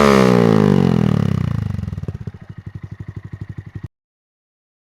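Honda Monkey 125's single-cylinder engine revved at a standstill, its pitch falling from high revs back to an idle over about two seconds. It pulses at idle, then the sound cuts off abruptly.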